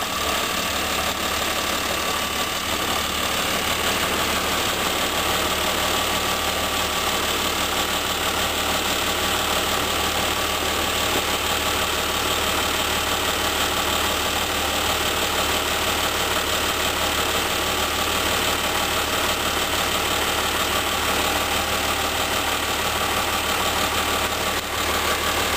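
Snow groomer's diesel engine idling steadily, with a constant low hum and clatter.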